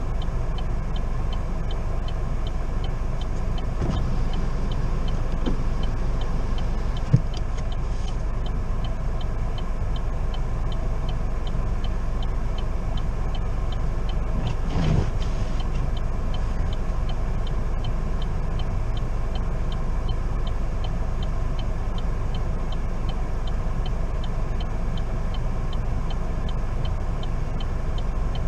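Steady low rumble of a car engine and road noise heard from inside the cabin while driving slowly. A faint regular ticking runs throughout, and there is a single sharp click about seven seconds in.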